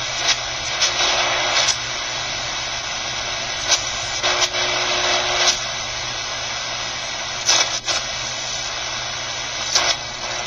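Static hiss from the QFX R-14 shortwave radio's speaker while it is tuned across the 31-meter band with no station to be found, with brief louder surges of noise here and there. The radio is running on its AC adapter, which the owner suspects is the cause of the noise.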